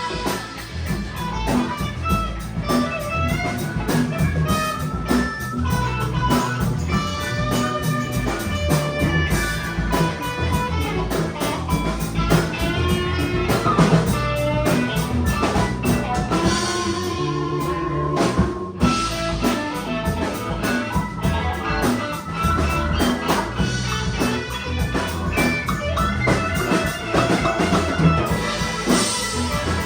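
A live band playing an instrumental passage: electric guitar lines over bass and drum kit, in a bluesy style.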